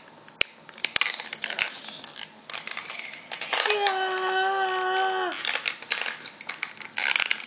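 Plastic blister packaging and card backing of a toy wrestling figure crinkling and rustling as it is handled and pried open, with a few sharp plastic clicks near the start. In the middle a steady held tone sounds for nearly two seconds, dipping in pitch as it stops.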